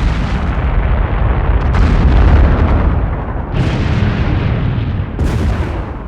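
Large explosion sound effects, one after another: each a sudden blast followed by a long, deep rumbling decay. New blasts come in about two seconds, three and a half seconds and five seconds in, over the tail of the one before.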